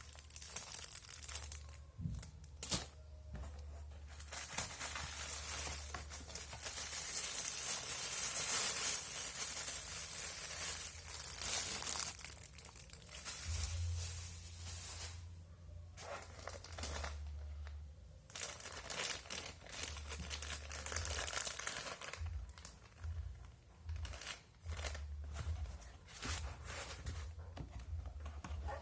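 Packaging being unwrapped: plastic crinkling and tearing in irregular stretches of rustling, loudest a few seconds in, over a steady low hum.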